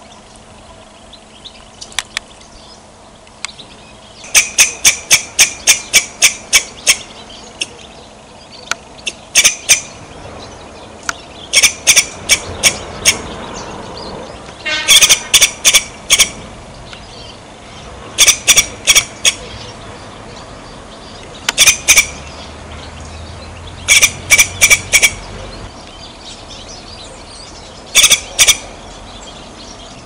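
Squirrel giving short, sharp chirping calls in quick runs of several a second, the runs coming in bursts every few seconds. The longest run, about a dozen calls, comes a few seconds in.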